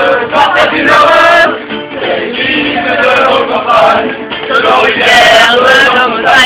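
A group of people singing a French song together, male voices prominent.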